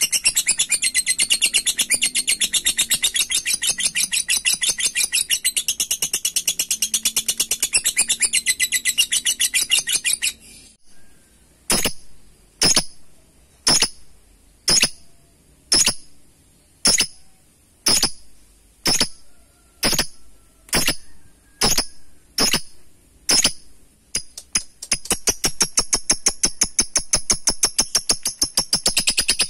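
Lovebird 'ngekek': a long, very rapid chattering trill of high-pitched notes for about ten seconds, then single sharp chirps about one a second, then the rapid trill again near the end.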